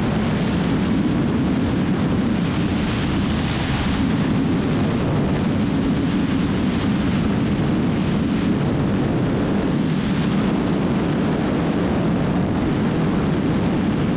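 Heavy wind rushing over the microphone mixed with a Kawasaki Z900's inline-four engine pulling steadily at about 200 km/h on the highway.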